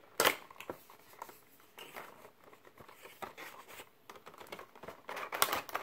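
Cardboard Funko Pop box being opened by hand: the end flap pried open and the packaging handled, with scattered rustling, scraping and clicks. A sharp click comes about a quarter-second in and a denser burst of rustling near the end.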